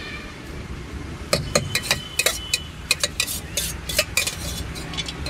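Metal spoon stirring and clinking against a stainless steel bowl while bhel is mixed: a quick run of sharp taps and clinks with a short metallic ring, starting about a second in and stopping after about four seconds.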